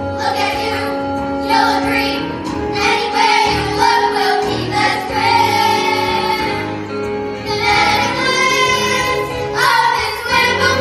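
A group of children singing a musical-theatre number together over instrumental accompaniment, with long held notes.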